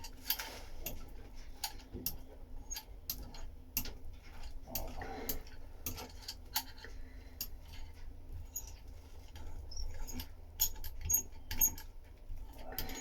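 Irregular light clicks and crackles from hands-on fibreglass laminating work, as resin-wet glass cloth is pressed and rolled down onto the hull coring, over a steady low hum.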